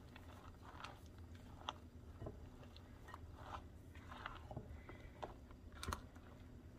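Spatula folding a wet egg, bean-sprout and shrimp mixture in a glass bowl: faint squelching and crunching, with scattered clicks of the spatula against the glass, the loudest near the end.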